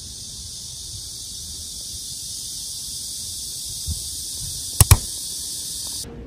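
Steady high-pitched buzzing chorus of cicadas, with two sharp camera-shutter clicks in quick succession near the end.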